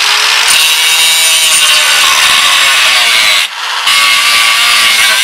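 Ryobi angle grinder cutting through 1/8-inch steel flat bar, a loud steady grinding screech. The sound drops off briefly about three and a half seconds in, then the cutting resumes.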